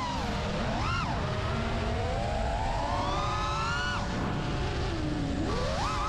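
FPV quadcopter's brushless motors (Xing2 2207 1950 kV) whining, the pitch sweeping up and down with the throttle. There is a long climbing whine that drops off suddenly about four seconds in, then quick blips of throttle near the end, over a low rush of wind and prop noise.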